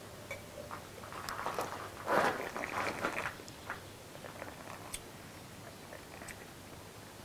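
A person sipping red wine and tasting it in the mouth, with a noisy slurping burst about two seconds in and faint small clicks afterwards.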